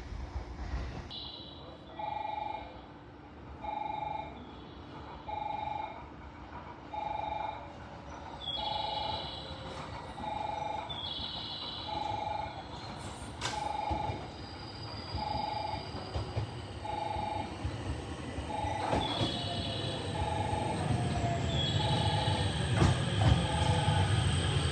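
A railway warning chime rings over and over in short, evenly spaced pulses. Train running noise builds under it and is loudest near the end, with wheel squeal as the train comes through.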